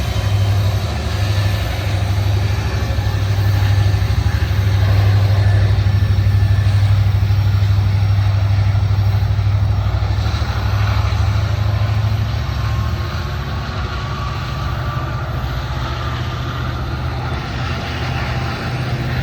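Diesel freight locomotive engine running with a deep, steady drone that eases off about twelve seconds in.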